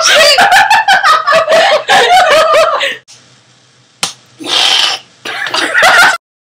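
Girls laughing and squealing in quick rhythmic bursts, then a single knife tap on a plastic cutting board about four seconds in, a breathy burst, and more laughter that cuts off suddenly near the end.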